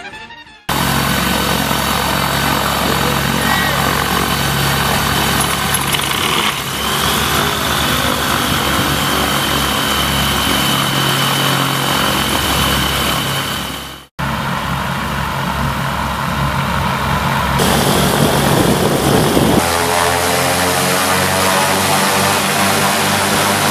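Ultralight aircraft engine running steadily at low power, with a sharp break about fourteen seconds in. Near the end it revs up with rising pitch for the takeoff roll.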